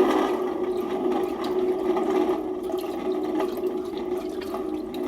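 Rocket launch sound effect: a steady rushing noise that holds evenly for several seconds.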